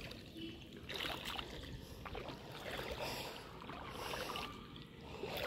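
Legs wading slowly through shallow seawater: soft, repeated sloshing swishes of water, roughly one a second.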